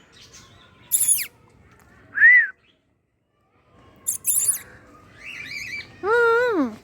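Pet parrots calling: shrill calls that sweep downward about a second in and again around four seconds, a short whistled note near two seconds, and a few chirps. Near the end a woman's voice gives a drawn-out, rising-then-falling "koo" call to the birds.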